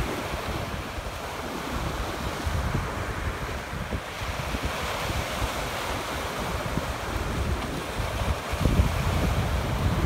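Surf breaking and washing up the beach, with wind rumbling on the microphone and gusting harder near the end.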